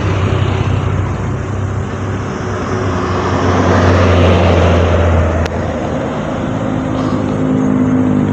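A motor vehicle on the road passing close by, its engine drone and tyre noise swelling to a peak about four seconds in, then fading as another engine draws near toward the end.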